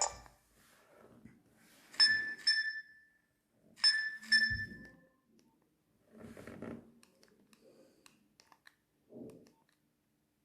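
Nokia 7250 phone speaker playing a short electronic alert: two quick same-pitch chiming beeps, heard twice about two seconds apart. Faint low bumps follow.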